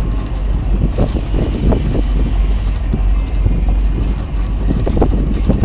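Boat motor running steadily under wind buffeting the microphone, with a brighter hiss for a couple of seconds about a second in.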